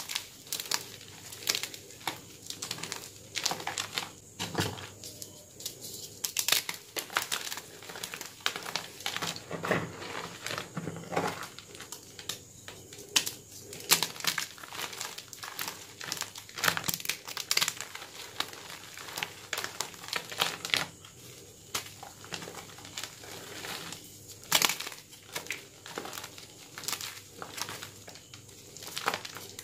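Homemade gym chalk blocks crushed and squeezed in bare hands: an irregular run of dry crunches and crumbling crackles as the chunks break apart into powder.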